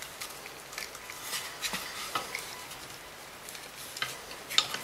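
Light clicks and rustling of small plastic parts and wires being handled as wires are pushed through a Kirby vacuum part, with a sharper click near the end.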